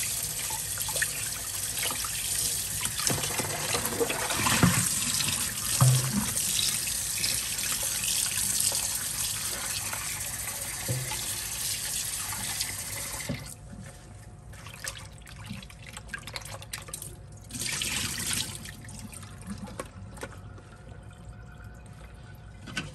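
Kitchen tap running into a bowl in a stainless steel sink, with splashing as raw beef liver is rinsed and squeezed in the water. About 13 seconds in the stream stops, leaving quieter sloshing and dripping as the liver is handled in the bowl.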